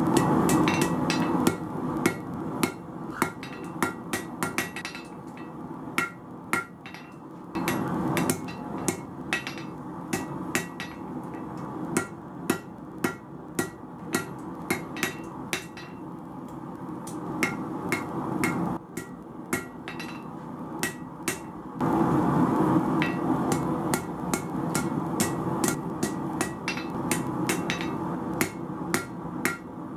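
Blacksmith's hand hammer striking red-hot knife steel on an anvil: quick ringing blows, two to three a second, in runs with short pauses. A steady roar, the gas forge's burner, sounds loudly under some stretches and fades back between them.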